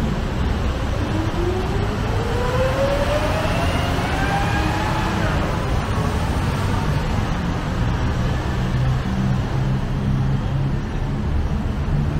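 Steady road traffic noise from a busy multi-lane city street. From about a second in, one vehicle's engine note rises steadily in pitch for about four seconds as it accelerates.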